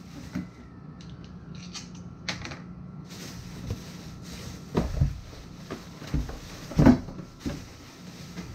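Several knocks and clunks of air-hose fittings and tool parts being handled, loudest about five and seven seconds in, over a steady low hum, with a faint hiss from about three seconds in.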